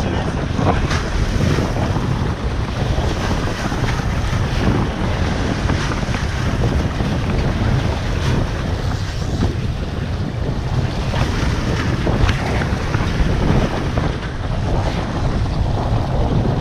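Wind buffeting the microphone, with steady boat and sea-water noise beneath it.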